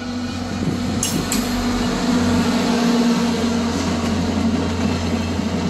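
Via Rail passenger train approaching: a diesel locomotive's steady engine hum over the rumble of the train, growing louder as it nears. Two sharp high clicks come about a second in.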